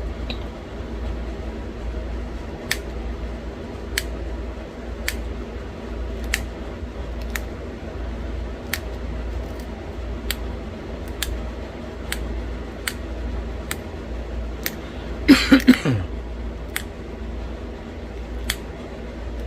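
Pressure flaking a small novaculite arrowhead: a run of sharp little clicks, roughly one every second, sometimes faster, as tiny flakes pop off the edge. About three-quarters through comes a brief, louder rasp with a dropping squeak, over a steady low hum.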